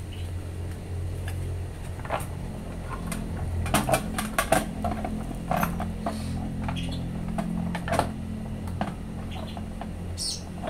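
Scattered light clicks and taps of a clear acrylic windshield and a metal number plate being handled and pressed into place on a scooter's front, over a steady low hum.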